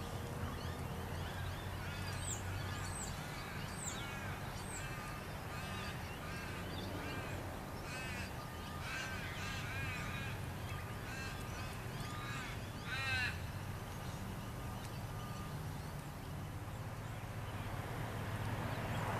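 Birds calling repeatedly in bursts of short rising-and-falling notes, busiest around the middle, over a steady low machinery hum.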